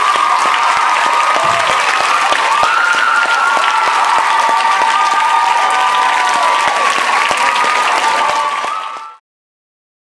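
Audience clapping and cheering, with sustained shrill voices over dense applause. It fades out quickly about nine seconds in.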